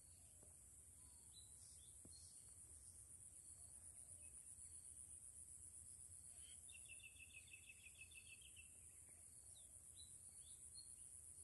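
Faint outdoor ambience: a steady high insect buzz, with scattered short bird chirps and a bird trill of about two seconds near the middle.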